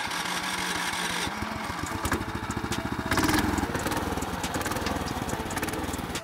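Small 6 hp Lifan single-cylinder engine on a homemade tracked armchair ATV running with a fast, even beat as the machine drives off. It briefly gets louder about three seconds in as the throttle is opened.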